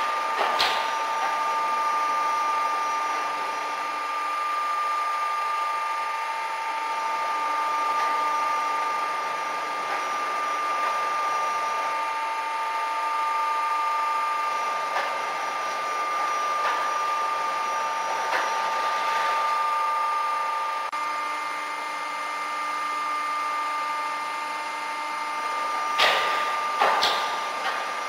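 Peddinghaus CNC feed line on a steel punching and shearing machine running with a steady whine. A few sharp knocks come through the middle, and two louder knocks come close together near the end.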